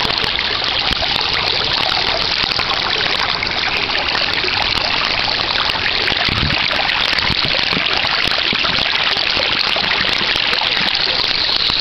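Mountain stream flowing over rocks: a steady, loud rush of water with fine splashing and gurgling.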